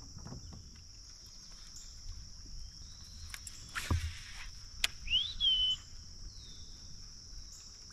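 Steady high-pitched buzz of an insect chorus. About four seconds in there is a brief splash and knock, and just after it a single bird call that rises and then holds its note.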